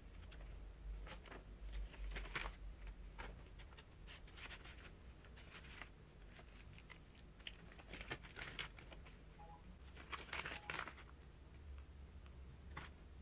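Paper rustling and crinkling in short, scattered bursts as a kraft paper envelope, a card and paper stickers are handled; the louder bursts come about two seconds in, about eight seconds in and about ten seconds in.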